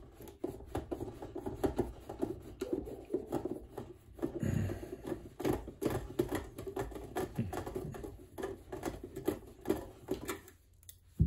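Phillips screwdriver turning a screw out of a sewing machine's plastic housing: a fast, uneven run of small scratchy clicks and creaks, with a sharper click at the very end.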